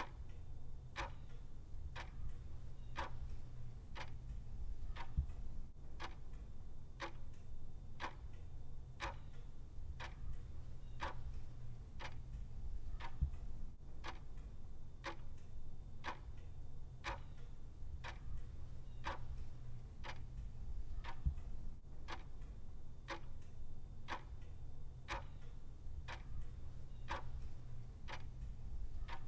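Clock ticking steadily, about one tick a second, over a low background rumble.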